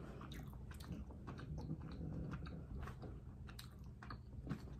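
A person chewing a soft, cream-filled white chocolate strawberry bread, close up, with small irregular mouth clicks.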